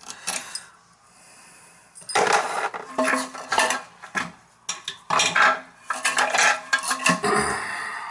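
Irregular clinking and clattering of metal tools and hardware against hard surfaces as a leaking toilet's tank-to-bowl bolts are worked on. The clatter comes in quick clusters from about two seconds in.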